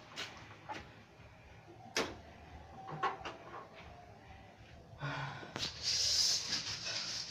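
Scattered clicks and clunks from a stalled motorcycle being handled and worked on by hand, with no engine running. About five seconds in, a louder stretch of hissing noise begins.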